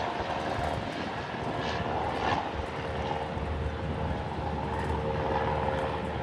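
Airbus A321 jet engines running steadily: a continuous roar with a held mid-pitched whine.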